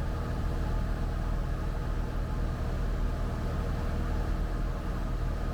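Cessna 172 Skyhawk's piston engine and propeller droning steadily in cruise flight, heard from inside the cabin.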